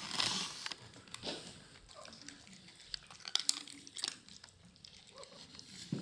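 Cats eating dry kibble from a stainless steel bowl: irregular small crunches and clicks.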